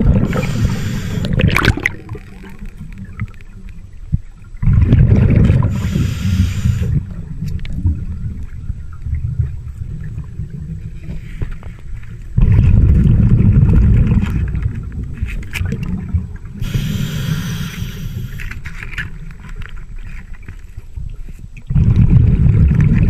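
Scuba breathing heard underwater through a regulator: hissing inhales alternating with loud, low rumbling bursts of exhaled bubbles, several breaths.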